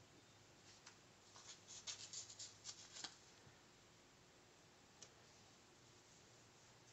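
Near silence broken by faint paper rustling and crackling from a sticker sheet and planner page as stickers are peeled and pressed down: a quick cluster of small crackles from about one and a half to three seconds in, then a single soft tick near five seconds.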